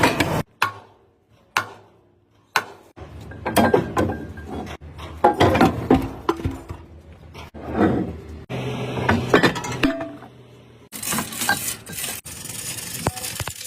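Metal pieces clinking and knocking together at irregular intervals, like tools and engine parts being handled and set down.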